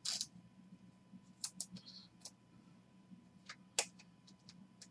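Faint, irregular clicks and soft snaps of trading cards being flipped through by hand, one card after another, with a louder snap near the end.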